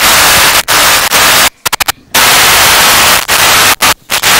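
Loud static hiss from the stage sound system's microphone feed, cutting out and back in abruptly several times and drowning out everything else: the microphone signal is breaking up.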